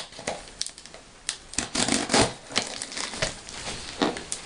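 Cardboard shipping box being opened by hand: irregular clicks, scrapes and rustles of cardboard and packing tape.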